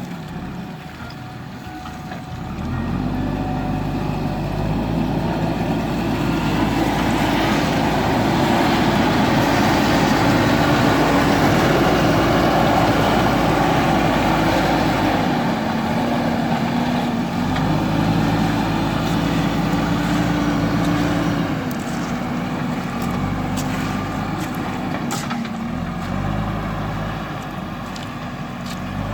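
JCB backhoe loader's diesel engine revving up about two and a half seconds in and running hard under load. Its pitch drops and rises again several times as the machine works. A few light clicks come late on.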